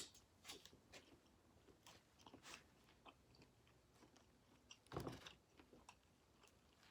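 Faint close-up chewing of shrimp and vegetable hibachi: soft, scattered wet clicks and mouth noises, with one louder burst of noise about five seconds in.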